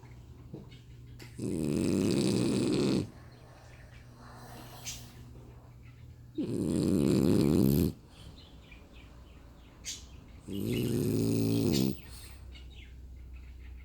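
French bulldog snoring in its sleep: three loud rasping snores about four to five seconds apart, each lasting about a second and a half, with quieter breathing between them.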